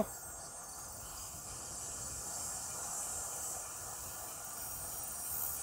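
Steady, faint high-pitched hiss of ambient noise while riding a bicycle along a trail.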